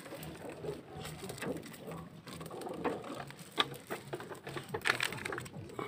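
Hands working chili-powder seasoning into raw pork chops on a plate: faint wet handling sounds with scattered small clicks and taps, one sharper click a little past halfway.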